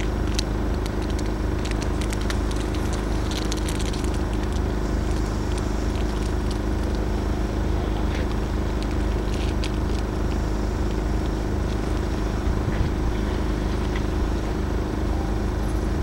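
Steady low mechanical hum at an unchanging pitch, like an engine or machine running, with scattered faint clicks and crackles over it.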